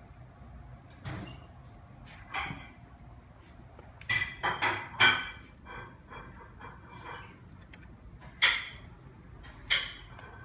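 Red squirrel monkeys giving short, high chirps again and again, among rustles and a few sharp knocks, the loudest about halfway and near the end.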